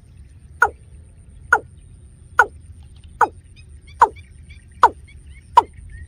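Watercock calling: a short note that falls sharply in pitch, repeated at a steady pace of a little more than one a second, seven times.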